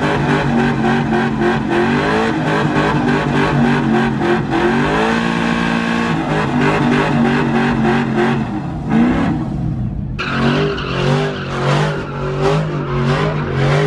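Pickup truck engines held at high revs during burnouts, rear tires spinning and squealing. The engine pitch rises and holds about five seconds in. About ten seconds in the sound changes abruptly to a second truck's burnout, its revs rising and falling quickly.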